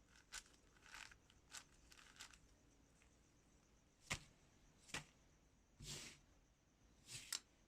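Packaging being handled during an unboxing: soft rustles of wrapping and a few sharp clicks or taps, spaced irregularly.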